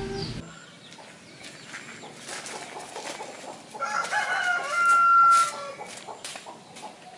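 Rooster crowing once, a single long call about four seconds in, ending on a held note. Scattered light clicks and steps accompany it.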